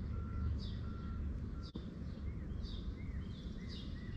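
Outdoor ambience: birds chirping repeatedly over a low rumble. For the first couple of seconds a single-pitched electronic beep repeats about every three-quarters of a second, like a vehicle's reversing alarm. It stops after a click partway through.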